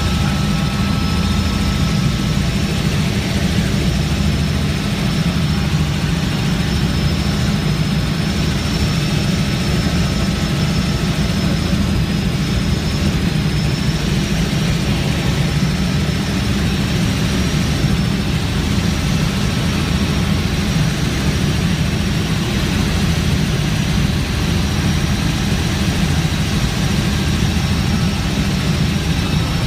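Helicopter's rotor and engine drone, steady and loud throughout, with a thin high whine above the low throb, as heard by a passenger riding aboard.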